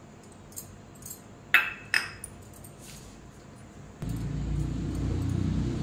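Steel kitchen bowls clinking as sugar is tipped from a small steel bowl into a steel mixer jar: a few light clinks, the two loudest about a second and a half and two seconds in. About four seconds in, a steady low hum starts abruptly.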